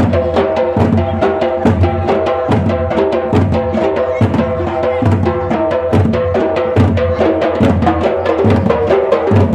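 Dollu, large Karnataka barrel drums, beaten by a troupe in a fast, steady rhythm: quick sharp strokes several times a second over a heavier low beat. Steady pitched tones carry through over the drumming.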